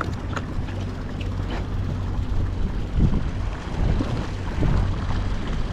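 Fishing boat's engine droning steadily under gusty wind on the microphone, with a few light clicks and a louder rush of wind about halfway through.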